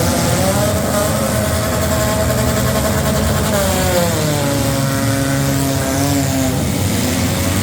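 Demolition derby cars' engines running and revving together, several engines at different pitches rising and falling.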